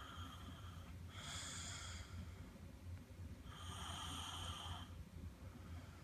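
A five-year-old child snoring in her sleep: three breathy, hissing snores about a second each, the longest and loudest about four seconds in.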